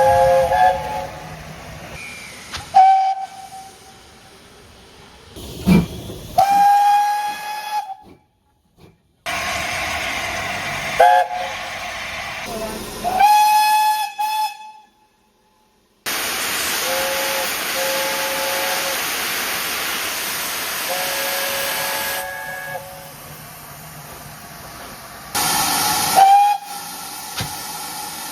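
Steam locomotive whistles blowing a series of short and long blasts over the hiss of escaping steam, from several clips spliced together. The sound cuts off suddenly into silence twice, briefly about eight seconds in and for about a second and a half around the middle.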